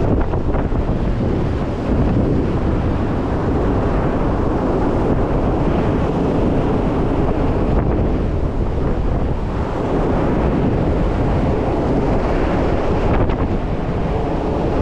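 Storm-force wind buffeting the microphone: a loud, steady rumbling rush with no let-up.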